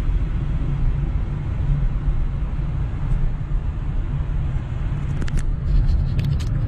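Steady low road and engine rumble heard inside a car's cabin while driving at speed on an expressway. A few faint light clicks come near the end.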